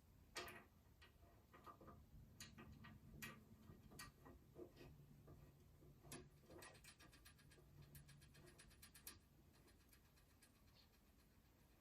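Faint scattered clicks and light knocks over a low hum, with a quick run of even clicks a little past the middle.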